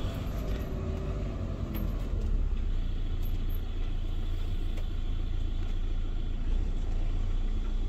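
Motorhome's engine and road noise heard from inside the cab while driving: a steady, low-pitched drone with no sharp events.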